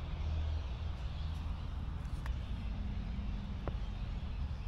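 Steady low background rumble, with two faint ticks about two and three and a half seconds in.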